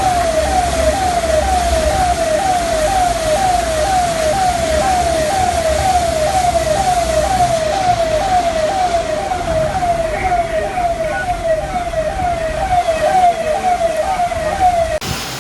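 Electronic siren sounding a fast repeating falling wail, about two and a half sweeps a second, over steady background noise. It cuts off abruptly near the end.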